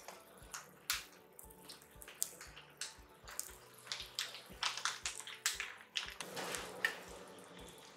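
Red wine vinegar with onion, garlic and herbs sizzling and bubbling in a hot frying pan, with irregular sharp pops and crackles; the sizzle swells for a moment about six seconds in.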